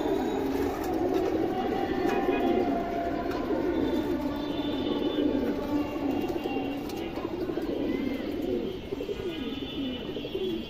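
Several domestic pigeons cooing, their coos overlapping continuously.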